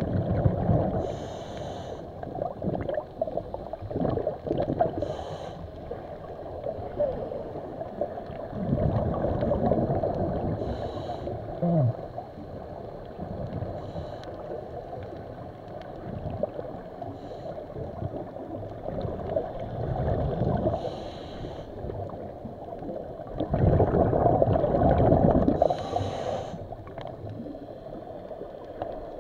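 Muffled water noise as heard through an underwater camera housing, with a swimmer's breathing through a snorkel or regulator as short hissy breaths and bubble bursts every three to four seconds.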